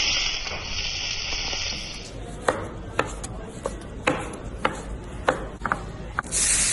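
Steak sizzling on a flaming grill, a steady hiss. About two seconds in it gives way to a knife slicing cooked steak on a wooden cutting board, the blade knocking sharply on the board about twice a second.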